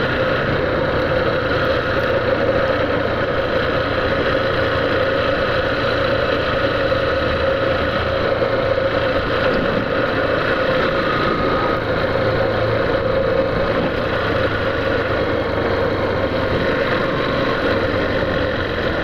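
Yamaha Factor 150 motorcycle's single-cylinder four-stroke engine running at a steady cruise under a continuous rushing of wind and road noise.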